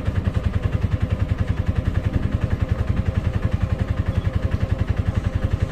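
Auto-rickshaw engine running at a steady speed, heard from inside the cab: an even, rapid chugging of about ten beats a second.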